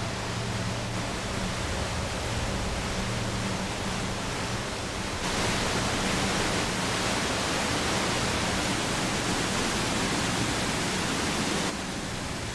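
Waterfall plunging into a narrow rock gorge: a steady rush of falling water, louder from about five seconds in until shortly before the end.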